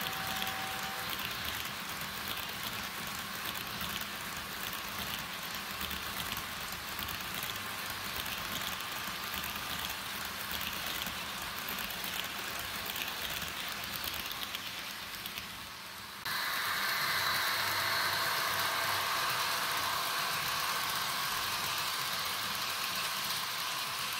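Sound decoder of an HO-scale Rapido F40PH model locomotive playing diesel engine sound through its small onboard speaker, over the hiss of the model running on track. About two-thirds of the way through, the sound steps suddenly louder, with stronger held tones.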